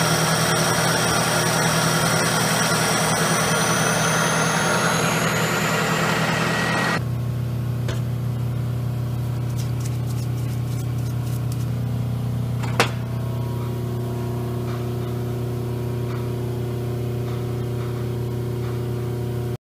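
Milling machine cutting metal with an end mill under coolant: a steady spindle whine over dense cutting noise. About seven seconds in it changes abruptly to a quieter, steady low machine hum, with one sharp click a few seconds later.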